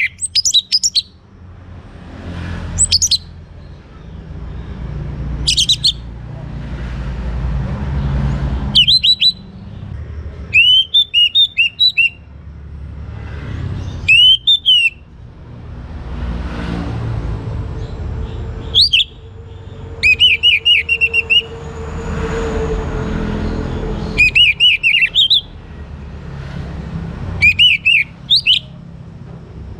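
Young orange-headed thrush singing short whistled phrases of quick sliding notes, a burst every few seconds. Beneath it, a low rumble swells and fades, with a steady hum in the middle.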